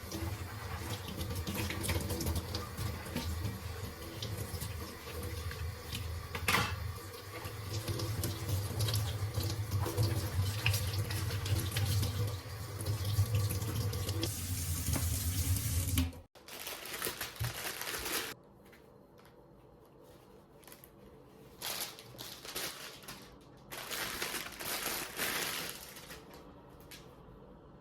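Water running steadily over a low hum, as a dishwasher is being cleaned; it cuts off abruptly about sixteen seconds in. After that comes a quiet room with a few short rustling and handling noises.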